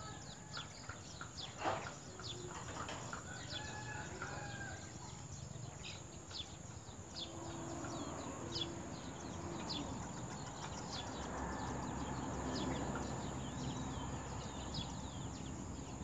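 Grass finch nestlings begging at the nest while the adult tends them: thin, high chirps, each sliding down, repeated several times a second, over a steady high whine. About halfway through, a distant rooster crows, and rustling picks up in the second half.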